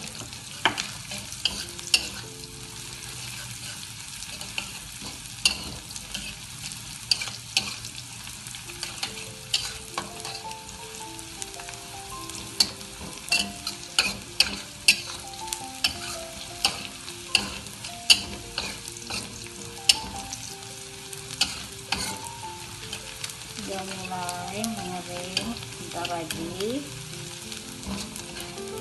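Metal spatula scraping and clanking against a steel wok as shallots, garlic, chilli and small dried anchovies stir-fry in hot oil. A steady sizzle runs under sharp clinks that come irregularly, about once a second.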